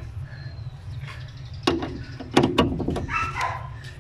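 A dog barking several times in the second half, over a steady low hum.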